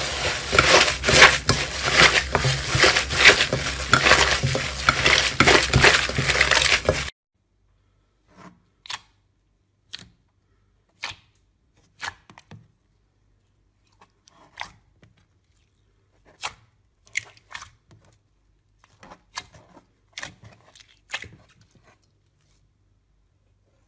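Hands squeezing and kneading blue foamy slime: a loud, dense crackling and tearing. About seven seconds in it changes to glossy gold slime being pressed and poked, with much quieter separate clicks and squelches about once a second.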